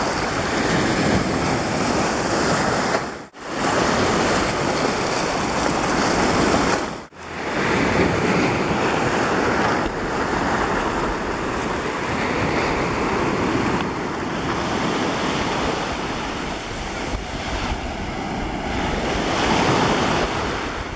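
Sea waves breaking and washing on the shore, a steady rushing surf with wind on the microphone; the sound cuts out briefly twice, about three and seven seconds in.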